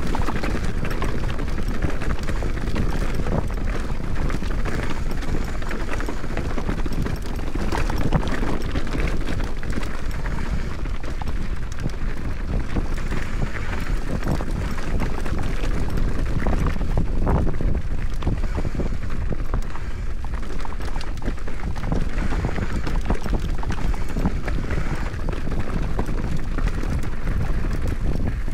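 A mountain bike descending a rough, rocky trail: constant wind noise on the action camera's microphone, with tyre noise and the bike rattling and knocking over the rough ground.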